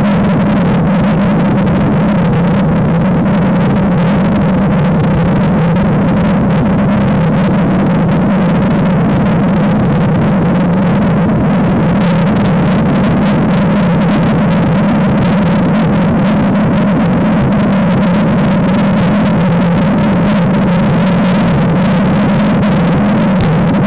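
Mountain bike's front tyre rolling on asphalt, picked up by a small camera clamped to the front fork, with wind rushing over its microphone: a loud, constant noise with a steady low hum under it.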